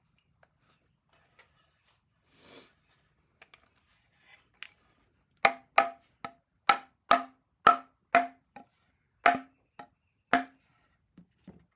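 Wooden chair rim section being tapped down with a mallet to seat its joints: about eleven sharp wooden knocks, roughly two a second, starting about five seconds in, each ringing at the same few pitches. A brief scrape comes a couple of seconds before the knocks.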